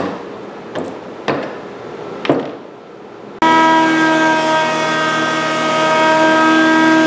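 Four hammer strikes on nails in old oak boards, irregularly spaced over the first two and a half seconds. About three and a half seconds in, a Porter-Cable benchtop jointer starts up abruptly and runs loud with a steady whine as an oak board is fed over it.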